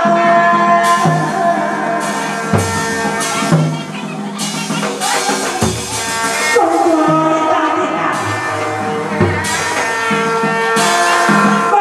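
Hát bội theatre music: drums and hand percussion strike every second or two under held, wavering melodic lines from the ensemble.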